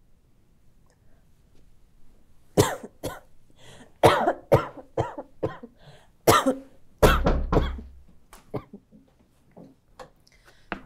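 A person coughing in a long fit of harsh coughs, about a dozen in quick clusters, starting about two and a half seconds in and dying away near the end: a persistent cough that has not stopped all day.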